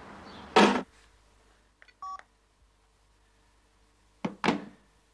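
A telephone gives a short electronic beep of two tones together about two seconds in, as a call ends. Two brief louder sounds come near the start and about four seconds in.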